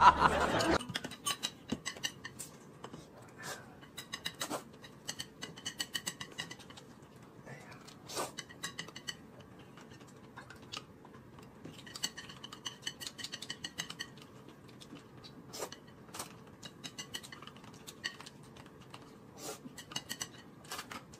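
Metal spoon clinking and scraping in a glass cup and chopsticks tapping a plate as people eat, heard as a run of light, scattered clicks.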